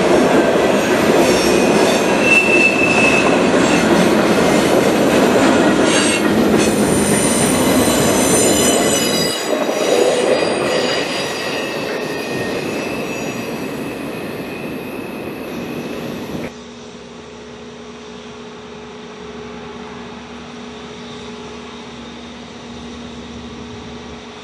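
Freight train cars rolling away on the rails, the wheels squealing, the noise fading as the end of the train recedes. About sixteen seconds in it cuts abruptly to a much quieter steady hum.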